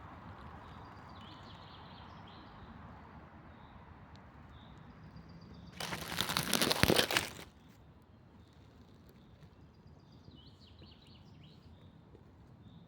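Small forest birds singing, short high chirping phrases coming and going over a soft steady hiss. About six seconds in, a loud crackling rustle lasts about a second and a half.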